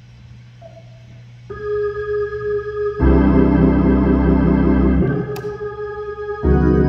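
Organ playing sustained chords: it comes in softly about a second and a half in, swells into full chords with deep bass about three seconds in, eases off around five seconds, and comes back in full near the end.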